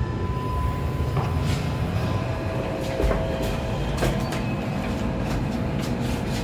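Kone elevator car buttons being pressed: several sharp clicks along with short electronic tones, over a steady low rumble. A thin steady tone sounds for about the first second.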